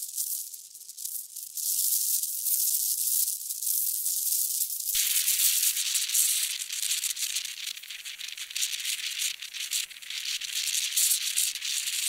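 Wind blowing in gusts: a rustling hiss that swells and dips. About five seconds in it suddenly turns fuller and reaches lower.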